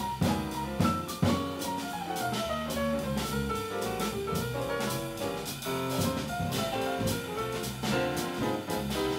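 Jazz piano trio playing live: grand piano, fretless electric bass and drum kit with cymbals, with two louder drum accents within the first second and a half.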